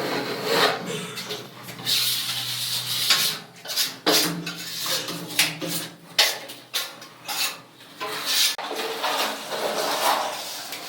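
Irregular scraping and rubbing strokes of a hand tool on a hard surface, with occasional sharp clicks and clatters.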